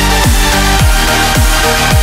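Electronic dance music: a deep kick drum that falls in pitch about twice a second under sustained synth chords.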